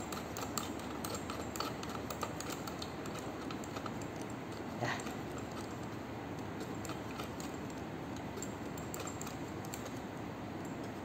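Small, scattered clicks and light rattles of an ECG machine's lead-assembly connector and cable being unscrewed and handled, over steady background noise, with one slightly stronger click about halfway through.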